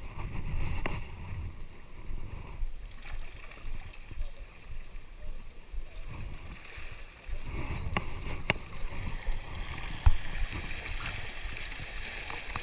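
Seawater sloshing in a hauled fishing net, with wind buffeting the microphone and a few sharp knocks about two-thirds through; near the end a steady hissing splash rises as the trapped fish thrash at the surface.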